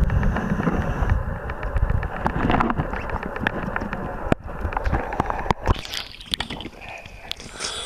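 Underwater water noise as a diver swims along the floor of an ice-covered pool: a low rumbling churn of water and bubbling with scattered sharp clicks, growing quieter over the second half.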